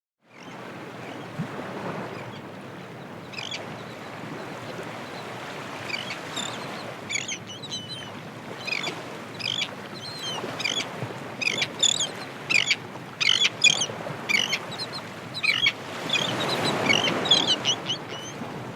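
Seagulls calling over the steady wash of ocean waves. The gulls' short cries come thick and fast from a few seconds in, and a wave swells louder near the end.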